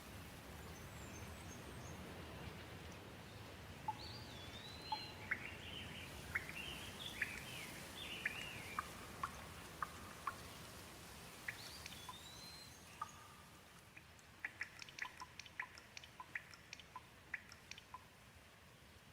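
Light, steady rain falling, with small birds chirping and calling over it from about four seconds in. Near the end the rain grows quieter and a quick run of short chirps comes through.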